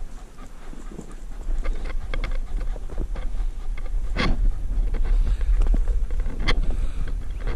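Wind buffeting the microphone under scattered crackling and rustling of dry scrub. Two louder sharp snaps come about four and six and a half seconds in.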